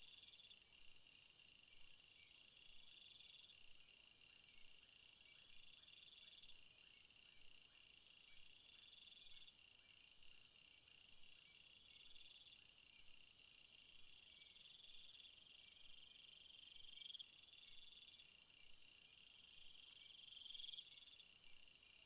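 Faint forest ambience of crickets and other insects chirping: steady high trills overlaid with pulsing chirp bursts that repeat every couple of seconds.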